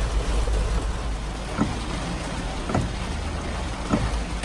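Heavy rain and gusting wind, a steady rushing noise over a deep rumble, with three sharper taps about a second apart.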